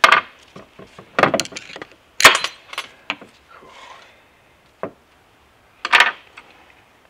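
A series of sharp metallic clanks and clicks at irregular intervals, the loudest a little over two seconds in and near six seconds. They come from the gears on a T50 transmission mainshaft and small hand tools being handled on a metal workbench during teardown.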